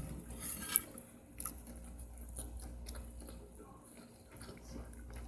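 A person quietly chewing a mouthful of dried fish, with a sharp click just under a second in and a softer one shortly after.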